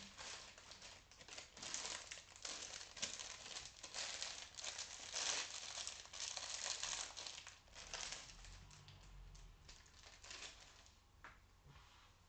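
A black plastic bag crinkling and rustling in the hands as it is handled, busy and irregular for the first eight seconds or so, then thinning out.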